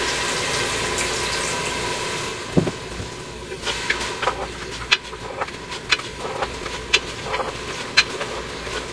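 Water poured into hot oil, fried onions and tomatoes in an aluminium pressure cooker, hissing and sizzling loudly and dying down over the first couple of seconds. Then a wooden spoon stirring the masala, with scattered sharp knocks and scrapes against the pot.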